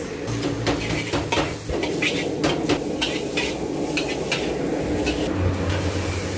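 Noodles and shredded cabbage sizzling in a hot wok as a metal spatula and fork toss and stir them, with irregular clinks and scrapes of metal on the pan several times a second.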